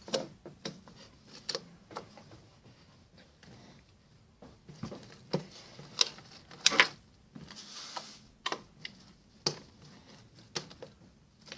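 Small plastic beads clicking and rattling as they are picked out of a plastic bead box: irregular sharp clicks and taps, thickest about five to seven seconds in.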